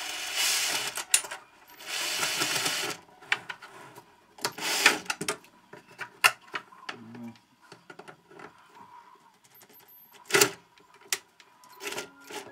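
Cordless drill-driver running in short bursts, driving a screw into the side of a wooden Warré hive box. There are two runs of about a second each, then a shorter one, followed by scattered metallic clicks as the wire hive clamp is handled.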